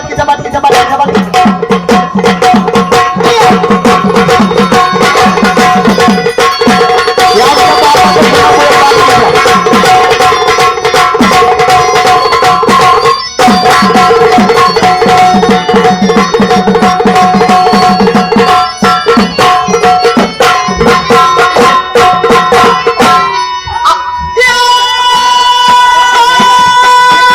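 Sambal drum played in fast, rhythmic strokes over sustained keyboard notes in gondhal folk music. The drumming breaks off briefly in the middle, then stops near the end, leaving a held keyboard chord.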